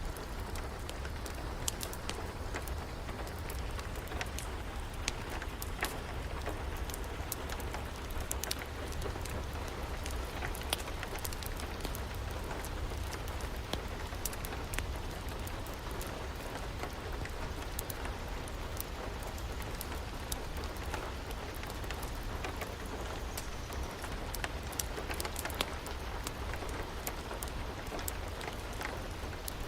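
Steady rain with a low rumble underneath, dotted with irregular sharp pops and crackles from a wood fire.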